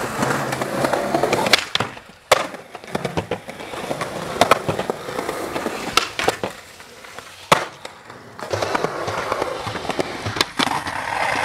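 Skateboard wheels rolling on concrete, broken every second or two by sharp clacks of the board being popped and landing.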